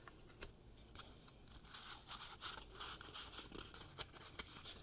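Faint rustling, scraping and small clicks of hands handling trading cards and wax-paper packs.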